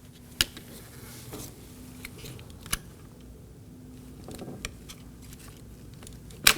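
Sharp plastic clicks and light handling rattles as the two wiring connectors are unplugged from the back of a car's master power-window switch, with a handful of separate clicks and the loudest one near the end.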